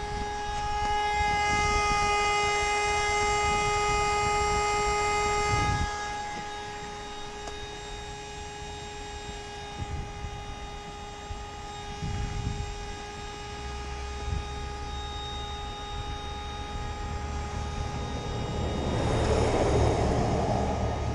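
Electric air pump inflating an inflatable boat through a corrugated hose, running with a steady whine that is louder for the first few seconds and quieter after. Near the end, a short hiss of rushing air.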